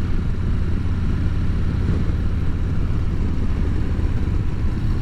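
Motorcycle engine running steadily at cruising speed, heard through a helmet microphone along with wind and road noise.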